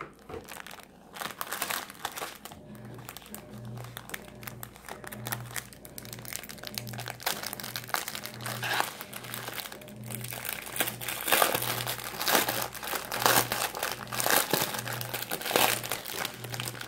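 Cellophane and clear plastic packaging crinkling and rustling as a wrapped craft kit is handled and opened, growing louder in the second half.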